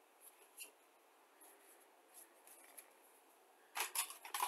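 Light scratching and faint ticks of small objects being handled on a work table, then a short burst of louder clicks and rattles near the end.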